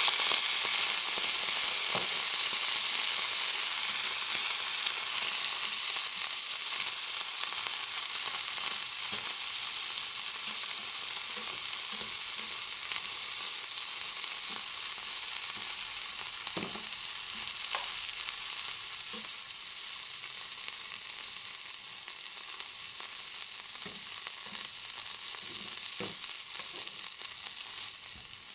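Mealworms and other insects sizzling in a hot nonstick frying pan as a dark sauce hits the pan. The hiss is loudest at first and slowly dies down, while a slotted metal spatula stirs and knocks against the pan now and then.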